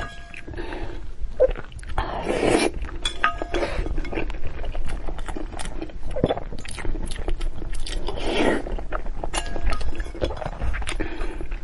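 Close-miked eating sounds: chewing and mouth noises with several longer noisy bursts, and utensils clinking against a bowl several times with short ringing tones.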